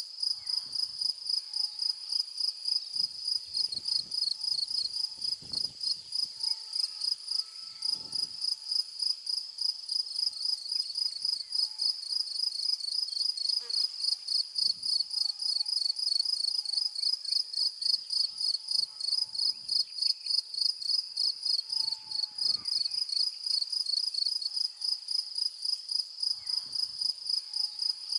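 Insects chirping in the grass: a shrill, high-pitched trill pulsing rapidly and evenly, several pulses a second, without a break. A few soft low thumps come and go under it.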